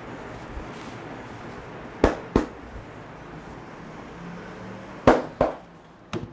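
Sharp open-hand slaps of an Indian head massage, landing in quick pairs: two about two seconds in, two more about five seconds in, and a single one near the end.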